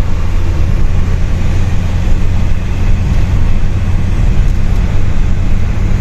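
Loud, steady rumble of vehicle traffic and wind on the microphone, with no break or distinct event.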